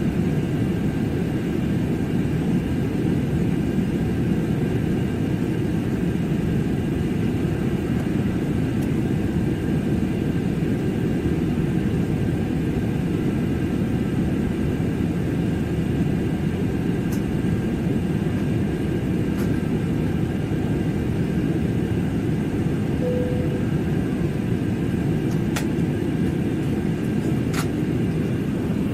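Airliner cabin noise in flight: a steady, dense low rumble of jet engines and rushing air, with faint steady whines higher up. A few light clicks near the end.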